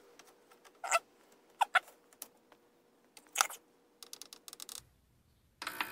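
Scattered clicks and knocks of a metal lighter being set into the plastic basket of a Brookstone ultrasonic jewelry cleaner and the lid shut, then a quick run of small clicks as the control buttons are pressed. Just before the end the cleaner switches on with a steady buzz.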